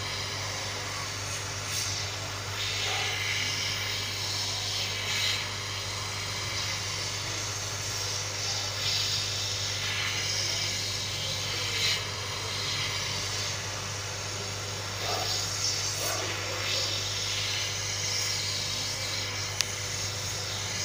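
Hot air rework station handpiece blowing a steady stream of hot air, a constant airy hiss over a low hum. It is heating a phone's touchscreen glass to soften the adhesive so the screen can be lifted off.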